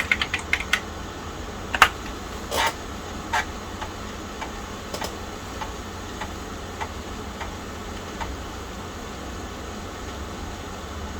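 Keys clicking on the Tandy 1000 EX's keyboard: a quick run of keystrokes, then a few single presses, then faint scattered ticks over a steady low hum.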